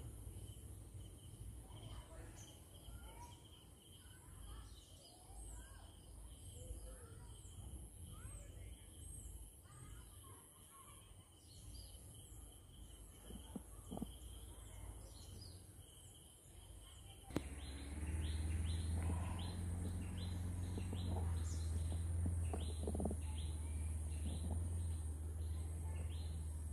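Wild birds chirping in forest trees: many short, repeated, falling calls over a steady high-pitched whine. About two-thirds of the way through, a steady low rumble starts suddenly and is the loudest sound from then on, with the bird calls continuing on top.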